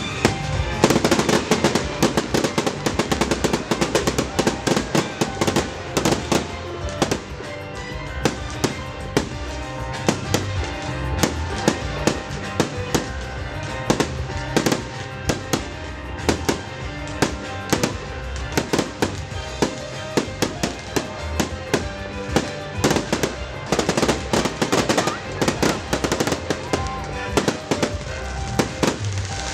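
Fireworks display going off continuously: a dense, irregular run of sharp bangs and crackles, several a second, with music playing along throughout.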